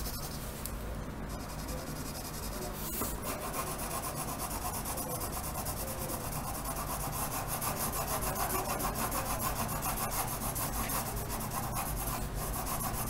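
Pencil scratching across paper in quick back-and-forth hatching strokes while shading a drawing, a little louder after about three seconds.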